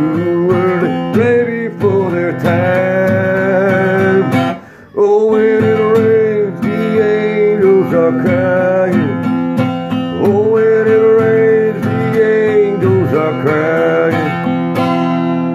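Strummed acoustic guitar with a man's voice singing long, wavering held notes without clear words; the playing drops out briefly about five seconds in.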